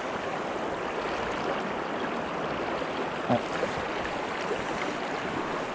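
River water flowing over stones: a steady rush of current.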